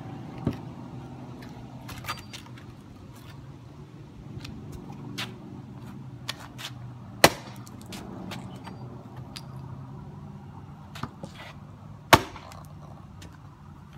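A hatchet chopping into a wooden 4x4 post: a few sharp strikes, the two loudest about 7 and 12 seconds in, with lighter knocks between them. A steady low hum runs underneath.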